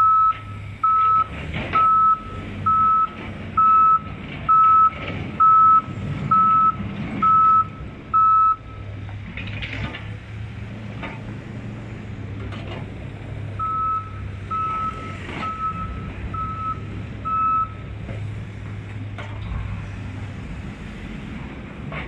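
Backup alarm of a Case 580 backhoe, beeping steadily about once a second while it reverses. It stops after about eight seconds, then sounds five more times, over the steady drone of the backhoe's diesel engine.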